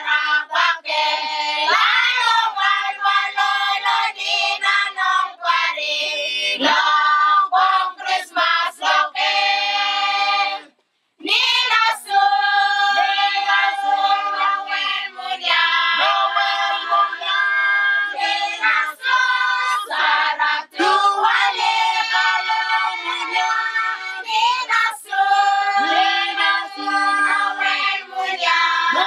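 A group of children and adults singing a Christmas carol together. The singing breaks off for a moment about eleven seconds in, then carries on.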